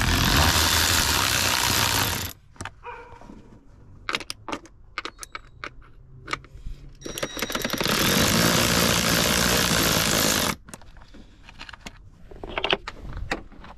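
Work on the BMW N54 engine cover's screws: two loud stretches of steady rushing noise, the first about two seconds long and the second about three seconds from near the middle, each cutting in and out abruptly. Between them come scattered sharp clicks and light metallic knocks of tools and screws being handled.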